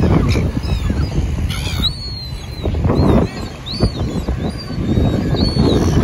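Short, thin, high arching bird calls repeating about once or twice a second, over a heavy low rumble of wind on the microphone and breaking surf that swells twice.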